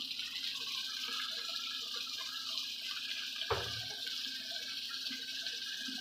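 Onions, tomatoes and ground green chillies sizzling in ghee in an aluminium kadhai, a steady hiss with small crackles. A single knock about three and a half seconds in.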